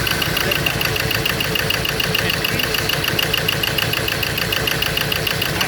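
Ford Ranger diesel engine idling roughly with an even, rapid clatter: it is misfiring, running on only two of its four cylinders because injectors 1 and 2 get no electrical pulse.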